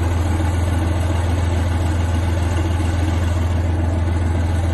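Tank engine idling with a steady low drone.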